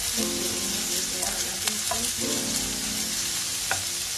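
Chopped meat, onion and garlic sizzling in oil in a hot granite-coated wok as they are stirred with a wooden spatula, with a few sharp taps and scrapes of the spatula on the pan.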